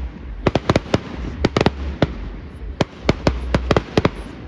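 Fireworks display: a rapid, irregular run of sharp bangs and crackles, some in quick clusters, about a dozen in a few seconds, over a steady low rumble.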